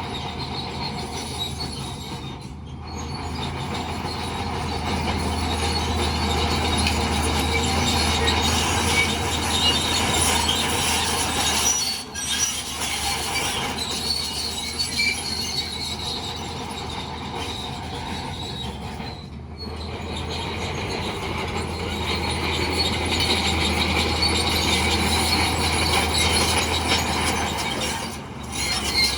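Crawler bulldozer at work: the diesel engine runs steadily under the high squeal and clatter of its steel tracks, broken by a few brief drops in sound.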